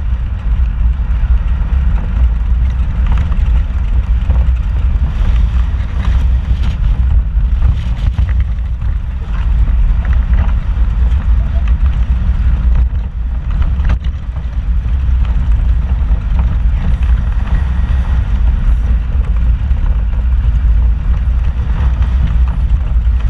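Vehicle driving over a rough, rocky dirt trail, heard from inside the cab: a steady low engine and tyre rumble with scattered small knocks and rattles.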